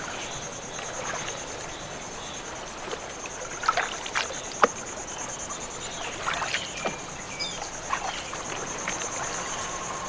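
Water splashing from a canoe being poled and paddled along a river, with a few sharp knocks, over a steady high-pitched insect drone.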